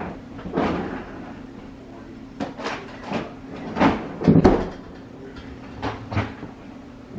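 Kitchen handling clatter: a string of separate knocks and clunks, the loudest about four seconds in, over a steady low hum.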